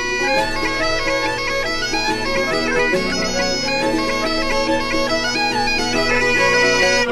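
Intro music played on bagpipes: a melody of stepping notes over a steady low drone.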